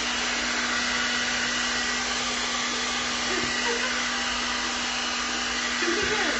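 Handheld blow dryer running steadily on a wet dog after its bath, a constant airy rush with a steady motor hum underneath.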